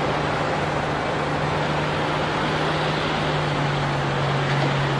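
Excavator diesel engine running with a steady drone under a broad hiss; its pitch dips slightly about four seconds in.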